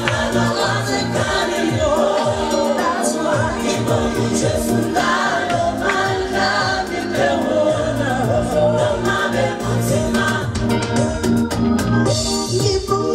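Gospel music: a woman singing live at a studio microphone over a backing track with choir voices and a steady bass beat.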